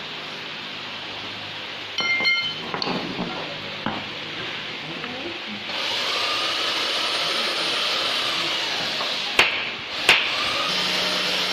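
Workshop sounds: a ringing metallic clink and a few knocks, then from about six seconds in a power tool running steadily, with two sharp knocks near the end.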